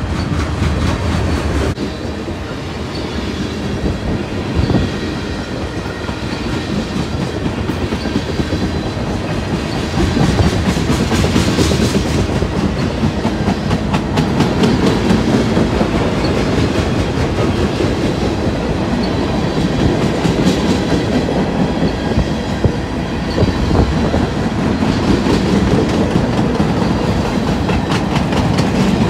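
Freight train rolling past, its car wheels clicking steadily over the rail joints, a little louder from about ten seconds in.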